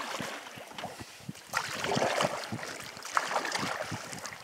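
Canoe paddle strokes splashing and swishing through river water, with wind noise on the microphone; the sound swells louder about a second and a half in.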